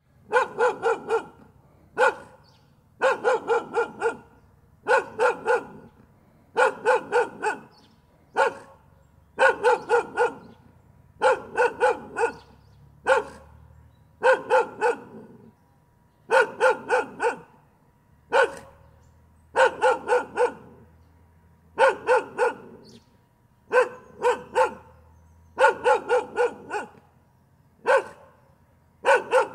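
A dog barking in quick runs of three to five barks, with a pause of about a second between runs and now and then a single bark.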